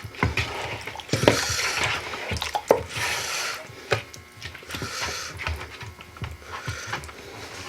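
Hands squishing chicken drumsticks around in a wet marinade in a bowl: irregular wet squelches with scattered clicks and knocks.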